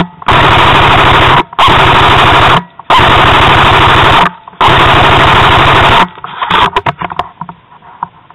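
Airsoft gun firing four long full-auto bursts, each a loud rapid rattle lasting about a second or more with short pauses between. Scattered clicks and knocks follow near the end.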